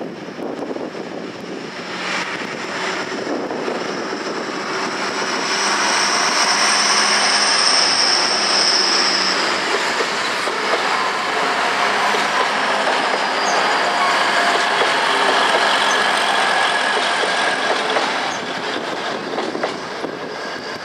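A train passing through a station, growing louder, holding for about twelve seconds, then easing off, with a high squeal from the wheels or brakes for several seconds early in the pass.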